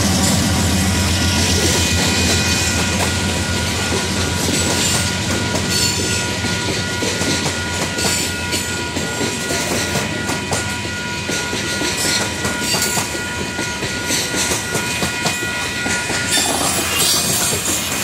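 Union Pacific grain train passing close by, wheels clacking and rattling over the rails, while a locomotive horn sounds steadily on top. The horn cuts off about 16 seconds in, leaving the rolling cars; a low engine rumble fades in the first couple of seconds.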